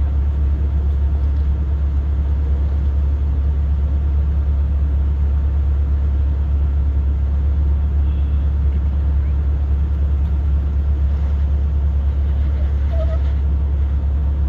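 A steady low engine rumble that holds one pitch, with faint voices now and then.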